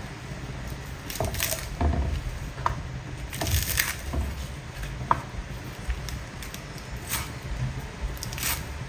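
Cleaver chopping green onions on a round wooden chopping block: irregular knocks of the blade on the wood, some in quick clusters and some with pauses between them.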